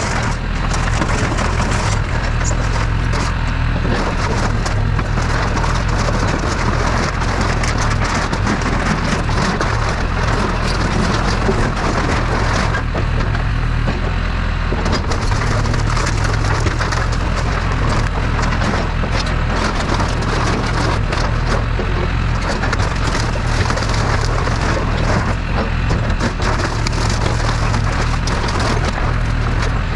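Backhoe crushing wooden debris: continuous cracking and splintering of wood over the steady run of its diesel engine.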